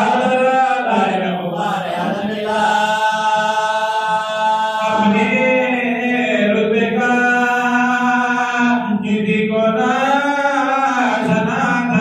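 Men chanting an Urdu elegiac recitation (noha or marsiya) into a microphone, one lead voice with others joining in unison, in long held melodic lines with brief breaks for breath.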